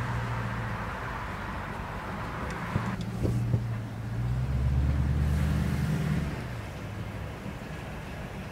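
Car engine and road noise heard from inside the cabin while driving slowly: a steady low hum that swells for a couple of seconds about halfway through, with a higher hiss that drops away about three seconds in and a few light clicks around then.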